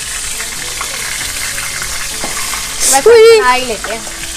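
Aubergine pakoras frying in hot oil in a pan on a gas stove, a steady sizzling hiss. About three seconds in, a person's short, loud, wavering exclamation cuts across it.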